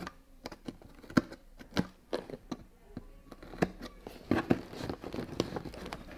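Utility knife cutting and scraping along packing tape on a cardboard box, with irregular sharp taps and knocks of the knife and hands against the cardboard. A rasping scrape runs through the second half.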